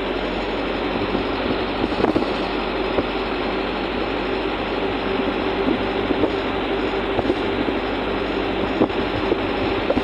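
A moving vehicle heard from inside: a steady engine drone and road noise, with a few short knocks and rattles from bumps in the road.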